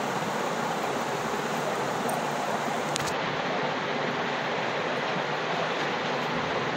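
Steady rushing noise, even in level throughout, with a single sharp click about three seconds in.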